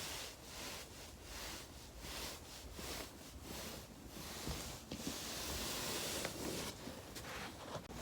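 Foam roller rolling under a person's body: fabric brushing and rustling against the foam in swells that rise and fall with each stroke, with a few faint clicks.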